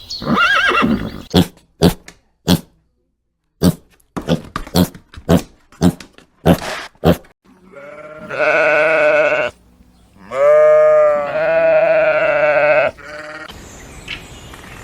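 A run of short, sharp knocks, followed by two long, drawn-out livestock calls, each held on a steady pitch for about one and a half to two and a half seconds.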